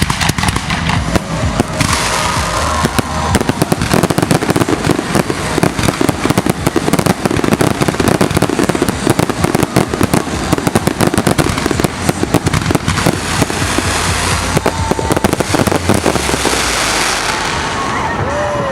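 Fireworks display: a dense, continuous barrage of bangs and crackling reports.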